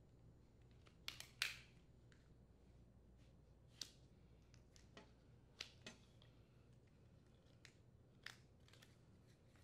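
Plastic retainers on a Honda mower's fabric grass bag being unhooked from its metal wire frame: faint scattered clicks and snaps with rustling of the bag's fabric, the loudest pair about a second in.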